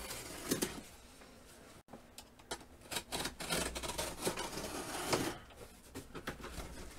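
A cardboard shipping box being cut open by hand, with irregular scraping and rustling strokes of the cutting and of the cardboard being handled.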